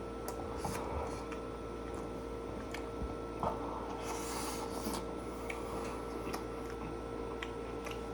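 Faint eating sounds: small wet clicks and squishes of chewing a sandwich, over a steady electrical hum, with a short hiss about four seconds in.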